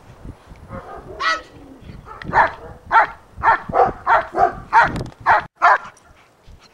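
German Shepherd barking repeatedly at a helper holding a bite sleeve, a sharp bark about twice a second, as in the bark-and-hold phase of protection work. The barks stop shortly before the end.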